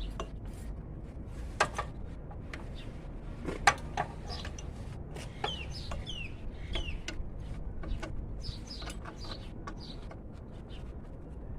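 Scattered sharp metallic clicks and clinks of a socket wrench working an alternator mounting bolt, with short falling bird chirps calling through the middle.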